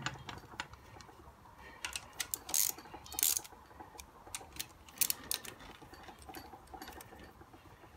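Scattered sharp metallic clicks and clinks of a ratchet wrench and socket extension being handled against an engine block, a few coming close together about two to three and a half seconds in.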